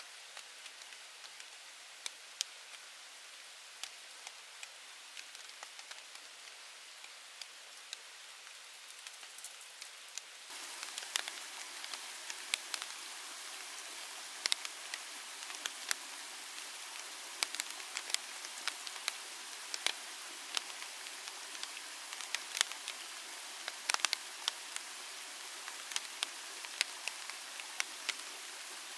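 Steady rain falling, with many sharp drop hits clicking through a high hiss; the rain is louder from about ten seconds in.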